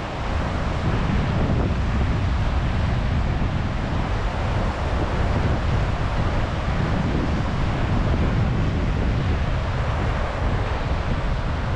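Steady road and wind noise of a car on the move, a low rumble under an even rushing hiss.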